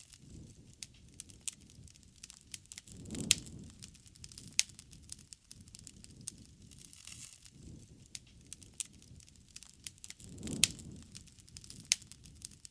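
Wood fire burning, crackling with irregular sharp pops and snaps over a low rush of flame. The flame noise swells twice, about three seconds in and again near the end.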